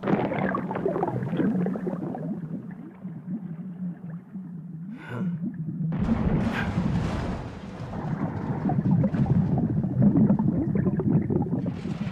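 Muffled underwater ambience sound effect: a low rumbling drone with gurgling under a steady low hum. It grows fuller and louder about six seconds in.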